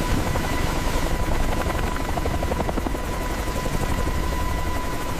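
Mi-24 Hind helicopter running with its rotor turning: a dense, fast-fluttering rushing noise with a steady high whine on top.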